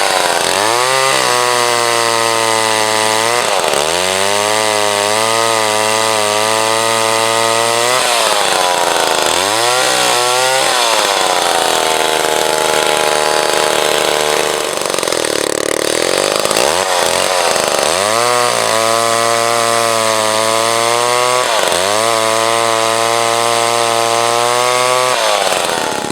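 Jobu Tiger 93 cc two-stroke chainsaw running at full throttle while cutting through a log. The engine pitch sags each time the chain bites into the wood and climbs again as it frees, repeating several times, with one long drawn-out drop about halfway through.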